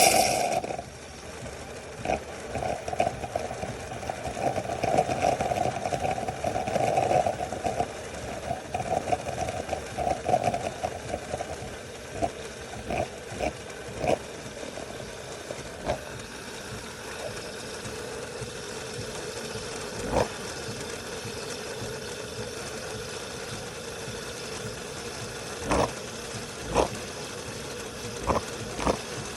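De'Longhi Magnifica Start automatic espresso machine running through a drink cycle: a steady mechanical hum with scattered clicks and knocks. The sound is rougher and louder for the first ten seconds or so, then settles into an even hum.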